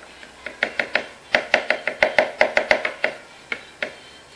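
Food being chopped: a run of sharp, short knocks, quickest through the middle at about six a second.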